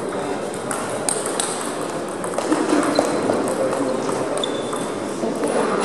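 Table tennis ball clicking off bats and table in a rally, a quick run of sharp ticks in the first couple of seconds, then only scattered ticks, over a murmur of voices in the hall.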